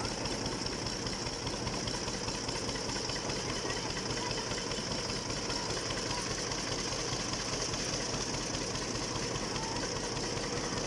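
Carrot washing machine running steadily: a continuous mechanical drone and rattle with a steady hiss over it.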